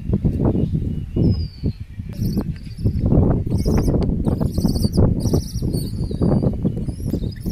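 Birds chirping in short bursts of high notes, with one falling whistle about a second in, over a loud, uneven low rumble.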